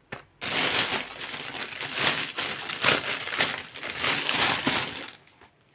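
Clear plastic gift wrapping crinkling and crackling as it is handled, starting about half a second in and stopping shortly before the end.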